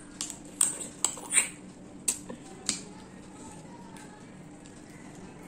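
Close-miked eating sounds: about six sharp clicks and smacks of chewing prawns with rice in the first three seconds, over a low steady hum.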